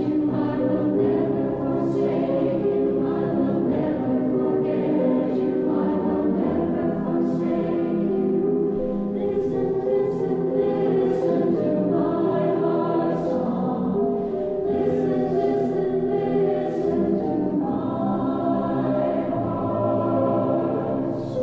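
Church choir singing a liturgical chant in held, sustained notes, with crisp 's' consonants cutting through.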